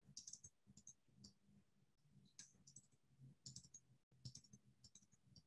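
Faint, irregular clicking in small clusters from a computer's controls being worked, heard over a weak low hum.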